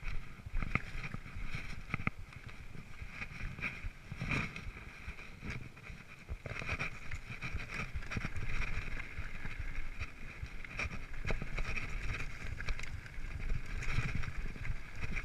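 Mountain bike riding fast down a dirt trail: wind rushing over the microphone and tyres rumbling on the dirt, with frequent short knocks and rattles as the bike hits bumps.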